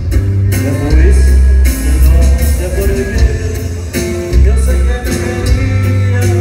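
Live band music played loud over a PA system, with heavy bass, a steady drum beat and a sung vocal line.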